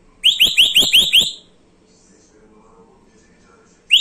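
African grey parrot whistling a run of six quick high notes, each sliding up and then down, about five a second, then starting the same run again near the end.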